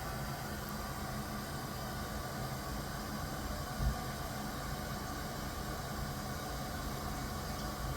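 Steady background hiss with a faint low hum, and one brief low thump about four seconds in.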